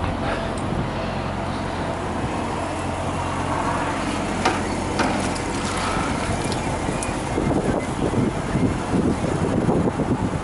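Semi truck's diesel engine idling steadily. About halfway through there are two sharp knocks as the squeegee goes into the wash bucket. In the last few seconds a rough, uneven scrubbing noise comes in as the squeegee works across the windshield.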